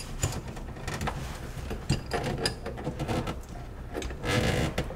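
Wrench tightening the nut of a stainless steel dishwasher supply line onto the water shutoff valve: irregular small metal clicks and scrapes, with a brief rustling scrape near the end.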